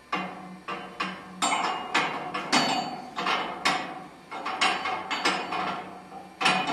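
Repeated sharp metallic clanks, about fifteen in quick irregular succession, each ringing briefly: the steel T-bar row barbell and its grip handle knocking together as the lifter sets his grip.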